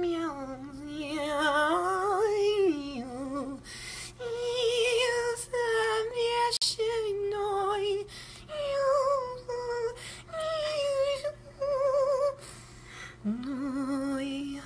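A solo voice singing slow, held notes with a wide vibrato and no accompaniment. Near the end a low note slides up and is held.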